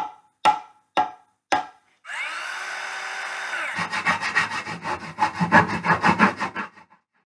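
Intro sound effects: four sharp knocks about half a second apart, then a saw cutting wood, first a steady rasp, then quick rhythmic strokes that stop shortly before the end.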